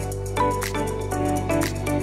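Instrumental background music with a steady beat, a held bass and short melodic notes.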